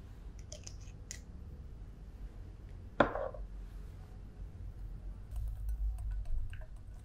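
A few small clicks from a small glass bottle being handled, one sharp ringing clink of glass about three seconds in, then a wire whisk clicking rapidly against a glass mixing bowl as egg yolks are beaten.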